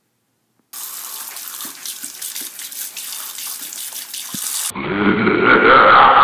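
Water from a tap running and splashing into a sink, starting suddenly under a second in. About a second before the end it cuts abruptly to a louder, muffled sound with several pitched tones.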